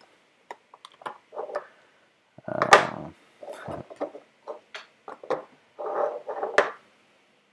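3D-printed plastic chassis parts and circuit boards being handled and set down on a desk: a string of light knocks, clicks and scrapes, with a louder clattering scrape about two and a half seconds in.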